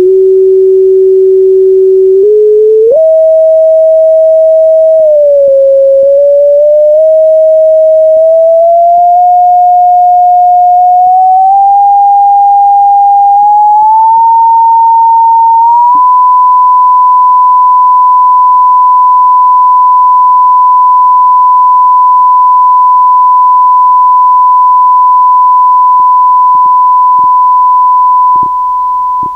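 Pure sine test tone from a wave-interference simulation's listener audio. It climbs in small steps from about 370 Hz to 1000 Hz as the frequency slider is dragged up, then holds steady at 1000 Hz. Near the end it drops in loudness as the amplitude slider is turned down.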